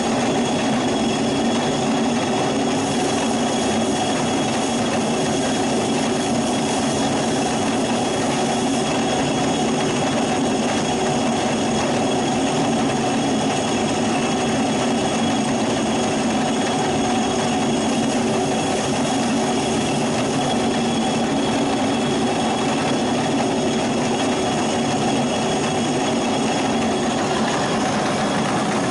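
Stone mill running steadily, grinding dry dog food.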